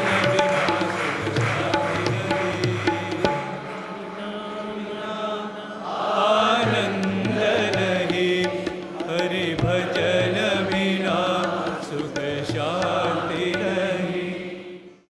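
Indian devotional music: a sustained drone with light percussive strokes, then a voice singing a chant-like melody from about six seconds in. The music fades out just before the end.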